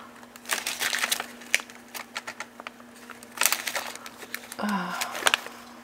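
Irregular bursts of key taps as a sum is punched in to check it, over a faint steady hum.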